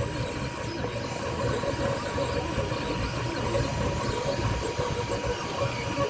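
Toybox 3D printer running mid-print: its stepper motors whir steadily, with short tones that shift up and down as the print head moves.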